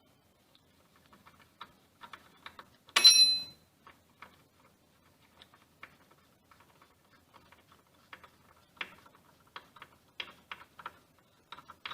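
Light, irregular metallic clicks and taps of hand tools and metal parts as the brake pedal is worked off a dental chair's base, with one louder ringing clank of metal about three seconds in.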